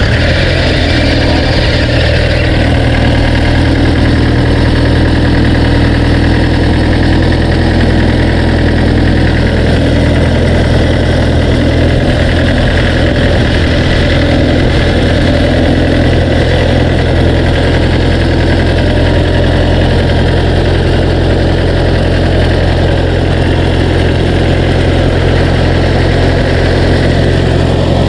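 Mini excavator's diesel engine idling steadily, heard up close with the engine cover open.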